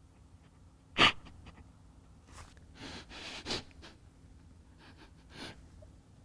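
A person breathing in and out close to the microphone, several short breaths and sniffs, with a sharp loud bump about a second in.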